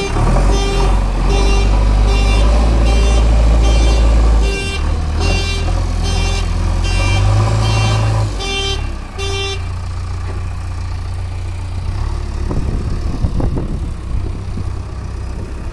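JCB 3DX backhoe loader's diesel engine working hard as the front loader bucket digs into and lifts a load of sand. A reversing alarm beeps about one and a half times a second until about nine seconds in, after which the engine runs on more lightly.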